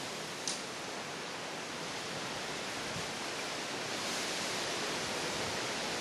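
Steady rushing noise of a strong storm wind, growing a little louder about four seconds in, with one short sharp tick about half a second in.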